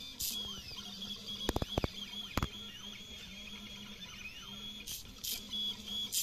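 Stepper motors of a DIY XY pen plotter driving the pen across the paper through timing belts while it draws: a thin whine whose pitch slides up and down as the axes speed up and slow, over a low steady hum. A few sharp clicks come about two seconds in.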